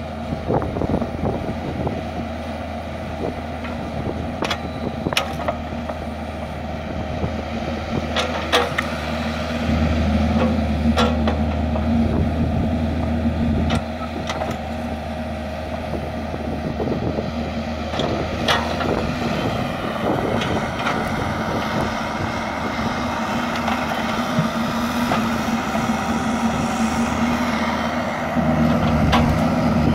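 Kubota KX121-3 mini excavator's diesel engine running steadily under hydraulic load as the boom and bucket work, the engine note getting louder and fuller for a few seconds about a third of the way in and again near the end. Scattered sharp metal knocks and clanks from the bucket and linkage sound over it.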